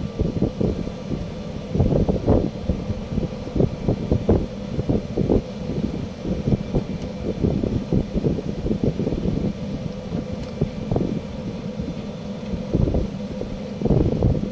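Wind buffeting the microphone in uneven gusts, with a faint steady hum underneath.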